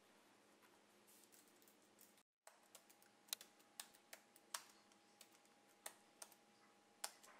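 Typing on a MacBook laptop keyboard: irregular key clicks, a few of them sharper, starting about two and a half seconds in after faint room hum.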